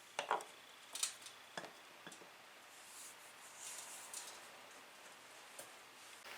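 A few light, sharp clicks and taps in quick succession, as of small hard objects being handled, followed by a soft rustle.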